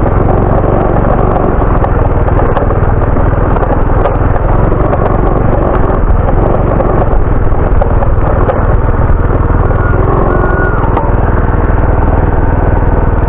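Small motorcycle engine running steadily while riding.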